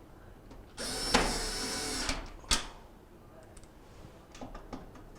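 A cordless power driver runs for about a second, tightening a screw on the dryer's front panel, followed by a sharp click and a few faint ticks.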